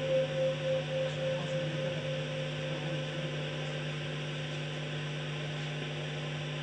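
Steady low hum with a background hiss, under the fading echo of a sung chant in the first second or two.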